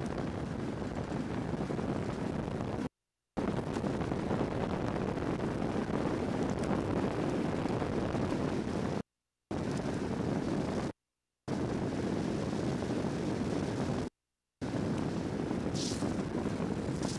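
Wind rushing over the microphone and wheel and road rumble of a soapbox car rolling fast downhill on pavement, with a short hiss near the end. The sound cuts out completely for a moment four times.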